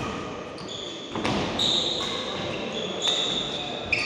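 Badminton doubles rally: rackets strike the shuttlecock about four times, and court shoes squeak briefly and high-pitched on the floor between the hits.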